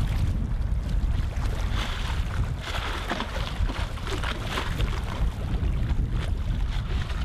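Wind on the microphone: a steady low rumble with an uneven hiss over it.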